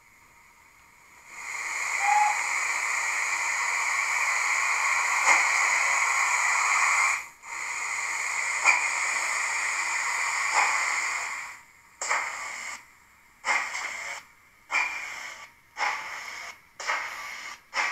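Digital steam-locomotive sound from a model GWR 3700 Class locomotive's Zimo sound decoder and small speaker: a steady hiss of escaping steam for about ten seconds, broken once briefly, then exhaust chuffs that start slowly and quicken as the locomotive moves off.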